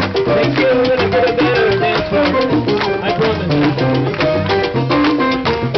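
Live salsa band playing, with a steady, dense rhythm of percussion strokes under bass and melodic lines.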